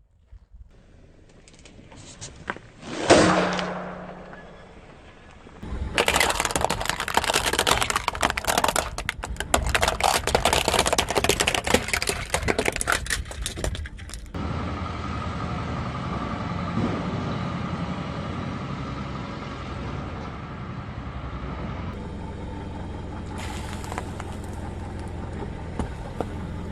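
A car tyre rolling over and crushing objects: a sharp crack about three seconds in, then a long stretch of dense crunching and crackling. After about fourteen seconds this gives way to the car's engine running steadily.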